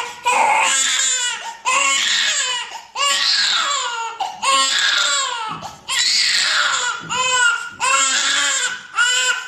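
Young infant crying hard in a string of loud wails, each about a second long and rising and falling in pitch, broken by quick gasps for breath. The baby is crying in distress while held and pressed in a Vojta therapy position.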